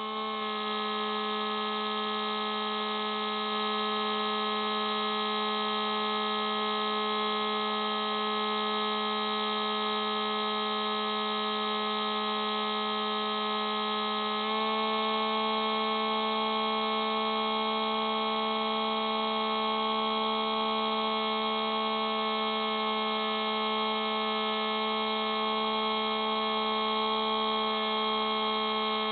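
Spyhawk FPV model plane's electric motor and propeller, heard from the onboard camera, running at steady cruise throttle as a constant whine. About halfway through it steps slightly higher in pitch and louder.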